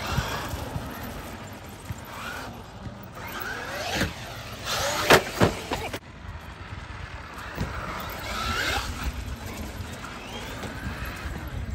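Traxxas Maxx RC monster truck's brushless electric motor whining as it revs up and down, with a few sharp knocks, the loudest about five seconds in.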